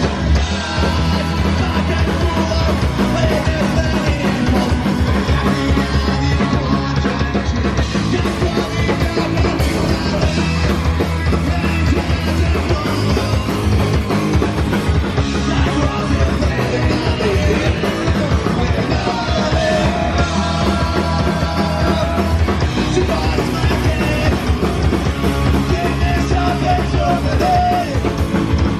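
Punk rock band playing live: electric bass, electric guitar and drums, with a singer shouting into the microphone at times.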